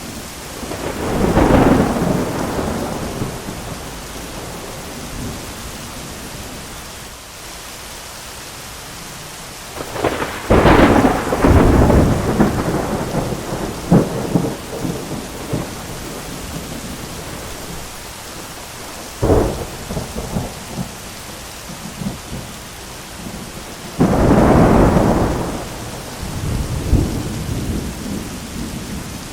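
Thunderstorm: steady heavy rain with repeated thunder. A rumble swells near the start. About ten seconds in comes a loud crackling thunderclap that rolls on for several seconds. A sharp crack follows a little before twenty seconds, and another rolling rumble comes near the end.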